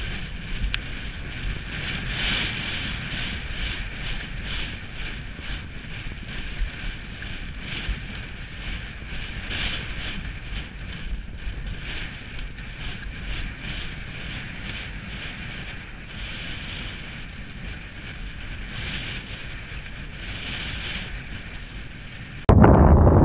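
Wind rushing over the microphone of a camera on a galloping racehorse's rider, with a loose rhythmic pulse from the horse's gallop running through it. Near the end a much louder blast of wind noise cuts in suddenly.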